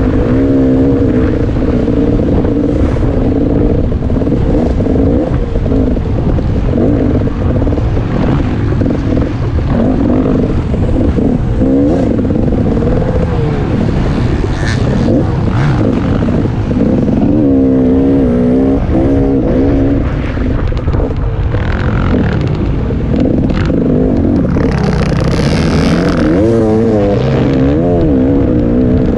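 Single-cylinder two-stroke dirt bike engine of a KTM 300 XC-W Six Days, heard close up from the bike. It is ridden hard the whole time, revving up and down with the throttle and shifts.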